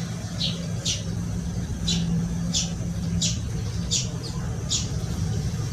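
Short high-pitched chirps from a small bird, repeated about every half second to a second, over a steady low hum.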